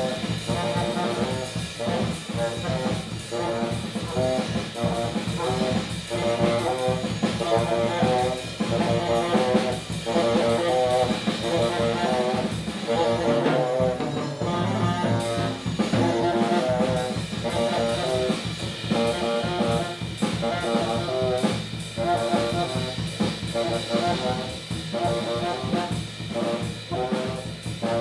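Free-jazz improvisation on drum kit and tenor saxophone: rapid, dense drum strokes under a horn line that changes pitch constantly.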